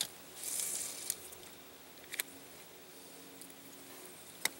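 Handling noise from a person moving about in a kayak: a short rustle about half a second in and a few sharp clicks or knocks spread out, the loudest near the end.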